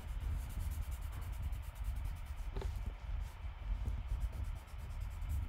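Charcoal rubbed across drawing paper: a faint rubbing over a low rumble, with one sharp click about two and a half seconds in.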